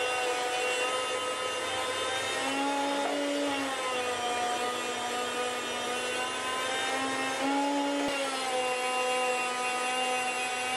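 Chef'sChoice 615 electric food slicer running as raw pork belly is pushed through its spinning blade. A steady motor whine that shifts slightly in pitch several times.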